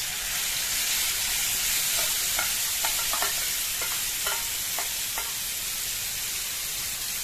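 Marinated mutton liver pieces sizzling in hot oil on a flat griddle (tawa), the sizzle starting as the pieces are tipped in and staying steady. A few short clicks come between about two and five seconds in.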